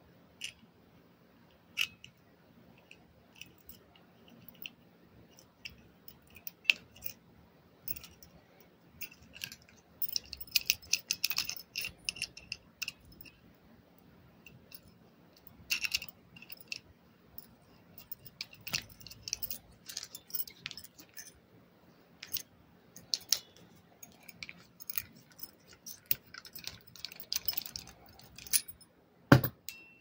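Steel screw key turning and scraping in the threaded bolt of a 1949 Hiatt 104 Darby handcuff, whose worn threads make it catch, with scattered small metallic clicks and a denser spell of rapid scraping about ten seconds in. A single sharp knock near the end.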